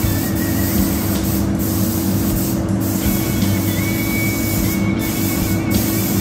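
Gravity-feed compressed-air spray gun hissing steadily as paint is sprayed onto a motorcycle fuel tank, the hiss dropping out briefly a few times between passes. A steady low hum runs underneath.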